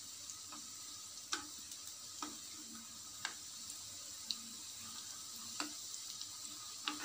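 Dough balls deep-frying in hot oil, a faint steady sizzle, while a metal spoon is swished through the oil. It clinks sharply against the pan about six times, at irregular intervals.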